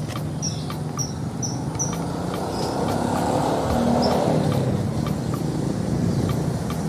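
A motor engine drones steadily, swelling louder about three seconds in and fading again. A bird repeats short high chirps during the first two seconds.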